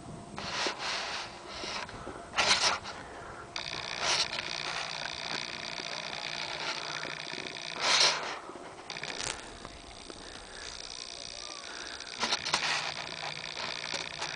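A person breathing and sniffing close to the microphone in short, sudden bursts every one to four seconds, over a steady faint hiss.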